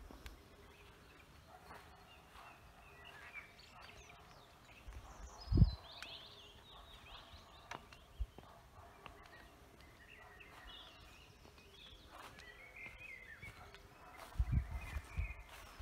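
Faint birdsong, scattered chirps over quiet open-air background noise, broken by a low thump about five and a half seconds in and a short cluster of thumps near the end.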